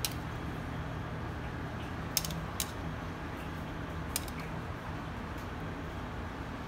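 A few light clinks of a utensil against a ceramic plate and a metal sheet tray as roasted vegetables are set down: four short, sharp clicks over a steady background hum.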